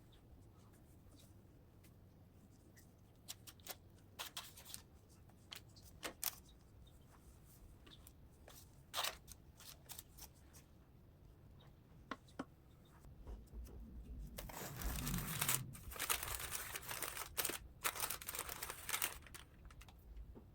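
Food-preparation handling sounds in a small kitchen: scattered sharp taps and clicks, then several seconds of denser rustling and scraping from about two-thirds of the way in.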